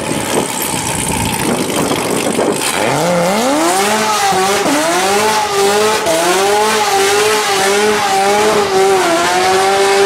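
A car engine revving up steeply about three seconds in and then held at high revs, wavering up and down, as the rear tyres spin and squeal in a smoky burnout. A loud rushing noise comes before it.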